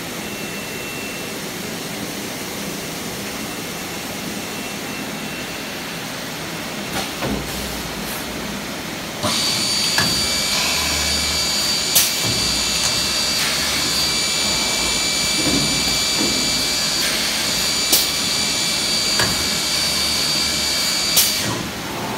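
Five-sided CNC drilling machine at work on a panel: a steady mechanical rush, then about nine seconds in the drill spindles spin up to a steady high whine that stops shortly before the end. Sharp clicks come three times while the whine runs, and low rumbles come as the head moves.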